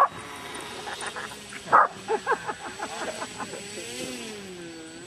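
Dogs barking and yelping in a quick run of short calls that drop in pitch, then a long whine that wavers up and down near the end.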